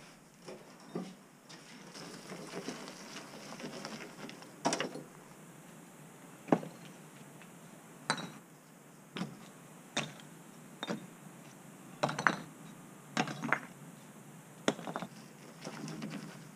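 Chunks of stone rubble thrown by hand up into a loaded farm trailer, each landing with a sharp knock. There are about a dozen knocks at uneven spacing, roughly one a second, some in quick pairs.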